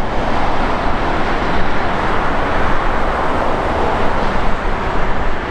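Airbus A330-243's twin Rolls-Royce Trent 700 turbofans running at taxi power, a steady jet roar that grows a little stronger midway as the airliner passes close by.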